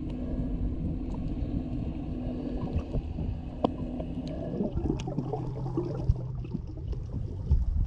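Underwater sound picked up by a snorkeller's camera: a dull, muffled water rumble with a steady low hum that drops lower about halfway through, and scattered sharp clicks.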